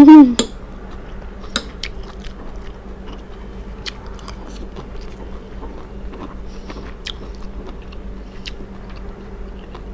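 Close-miked chewing and mouth sounds of a person eating a spoonful of rice and fish, with scattered small clicks and smacks. A short loud voiced sound at the very start.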